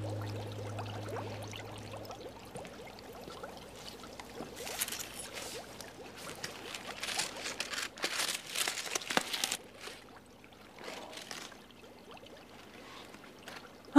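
Music fading out, then faint irregular splashing and trickling of water, busiest in the middle.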